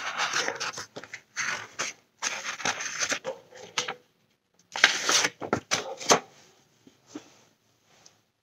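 Paper pages of a picture book rustling as it is opened and turned to the first spread, in several bursts over about six seconds, then only faint handling.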